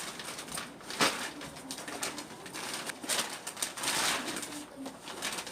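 Plastic and cardboard packaging rustling and crinkling as it is handled, in uneven swells, with a sharp click about a second in.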